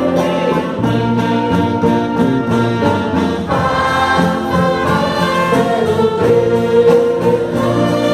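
An orchestra with a brass section, trumpets and trombones to the fore, playing sustained chords, with a choir singing along.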